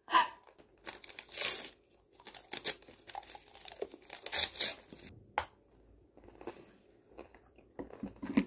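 Crunching and chewing on a bite of candied tangerine (tanghulu), the hard sugar shell crackling between the teeth in irregular short bursts.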